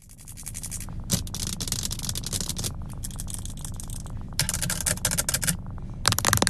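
Acrylic fake nails clicking and tapping against each other rapidly, in several bursts that grow loudest near the end, over a steady low hum.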